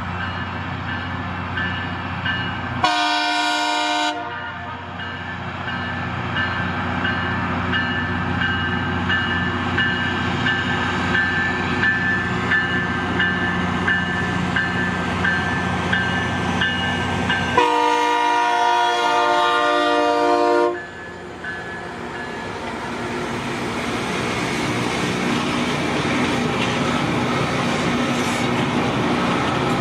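Loram rail grinder train running with steady engine and rail noise, broken by two horn blasts: a short one about three seconds in and a longer one of about three seconds around eighteen seconds in.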